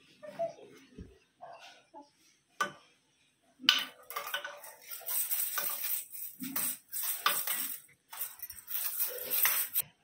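A toddler's plastic toys clattering and rattling: a couple of sharp knocks, then a long run of rattling and clinking with a short break, as a toy rattle is shaken and a toy hammer is knocked about.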